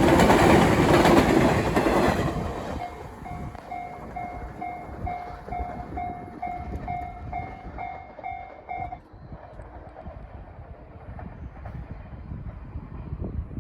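The last cars of the WEST EXPRESS Ginga, a converted 117-series electric multiple unit, rumbling and clattering over the rails at a level crossing, fading away over the first couple of seconds. The crossing's electronic warning bell then rings on its own at about two dings a second and stops abruptly about nine seconds in, as the crossing clears after the train.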